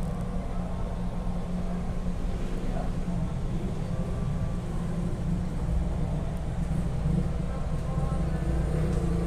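Steady low rumble inside the carriage of an electric commuter train, with no sharp knocks or changes in pitch.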